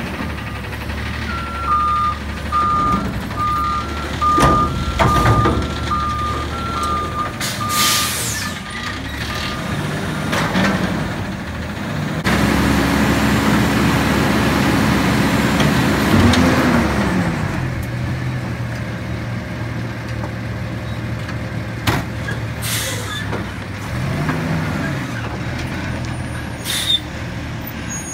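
Front-loader garbage truck working a dumpster: its backup alarm beeps about twice a second for several seconds, then the diesel engine revs up and drops back twice as the hydraulic arms are worked. Short air-brake hisses and clanks come in between.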